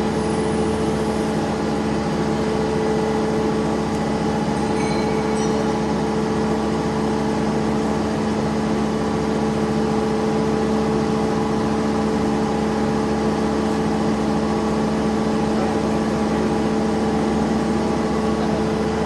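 CNC lathe running with a steady mechanical hum, two strong steady tones over an even machine noise that does not change.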